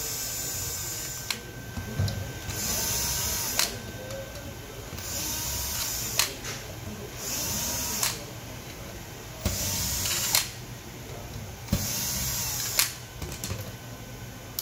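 Cordless drill-driver run in about five short spurts of a second or so, each ending in a sharp click, backing screws out of a metal control-box cover.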